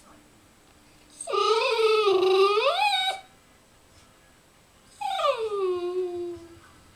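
Dog giving two long, drawn-out whining howls: the first wavers and rises at its end, the second falls steadily in pitch.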